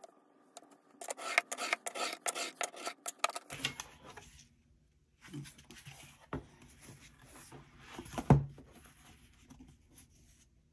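Utility knife cutting book board along a steel ruler: a quick run of rasping strokes lasting about two and a half seconds, trimming off the excess board. Then quieter handling of the board and rulers, with a couple of sharp knocks as things are set down, the loudest near the end.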